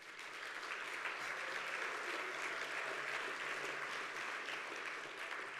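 Audience applauding, swelling at the start and dying away near the end.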